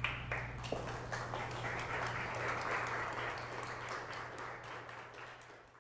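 Audience applauding: many hands clapping that builds up and then fades away near the end, over a steady low hum.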